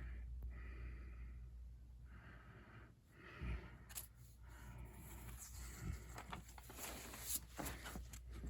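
Soft breaths close to the microphone, then crisp paper $2 banknotes being handled, rustling and crinkling from about four seconds in, over a low steady hum.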